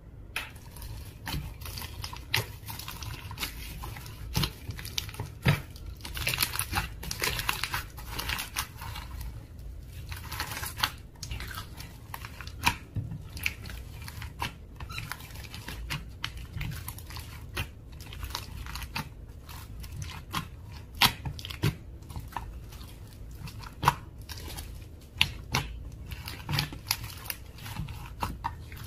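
Slime being squished and kneaded by hand, giving a run of irregular sticky clicks and pops with denser crackling stretches.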